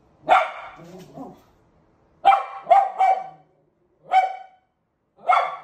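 Small curly-coated dog barking six times: one bark, a quick run of three, then two more singly, aimed at its own reflection in a mirror as it play-bows.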